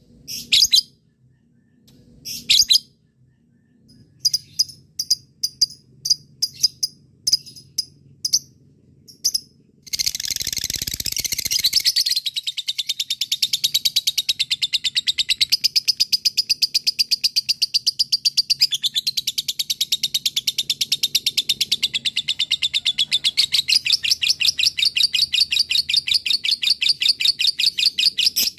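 Lovebird giving short, sharp chirps, then, about ten seconds in, breaking into a long unbroken chattering trill of rapid, evenly repeated high notes (the prized 'ngekek panjang').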